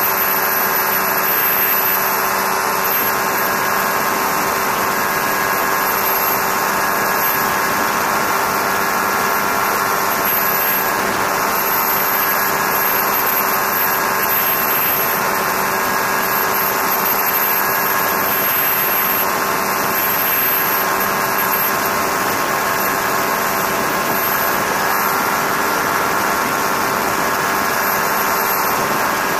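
Challenger II ultralight aircraft's engine running steadily in level flight, a constant drone with several fixed tones over a rush of noise.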